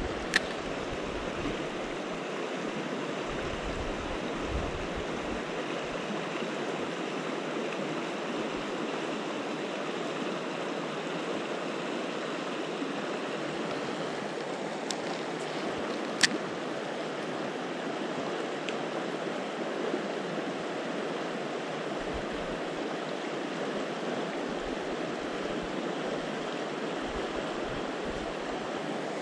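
Mountain river rushing steadily, an even wash of flowing water. A few sharp clicks cut through it: one about half a second in and a louder one about 16 seconds in. A brief low wind rumble comes on the microphone now and then.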